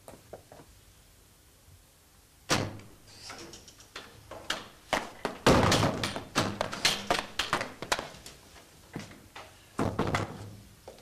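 A wooden door banging, followed by a run of knocks and thumps, loudest about halfway through, as someone bursts clumsily into the room.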